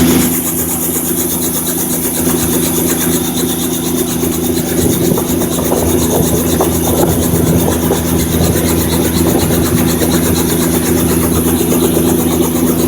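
Helicopter running at close range: a steady engine hum with a rapid, even chop from the rotor blades.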